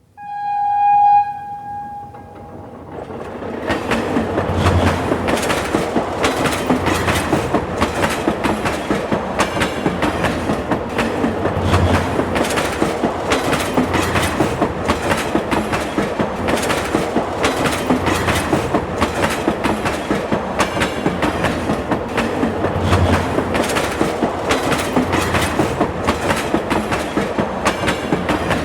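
A brief single-pitched horn tone sounds first. A subway train then comes up over a few seconds into a steady run, with rapid clickety-clack of wheels over the rail joints and a heavier low thump every five or six seconds.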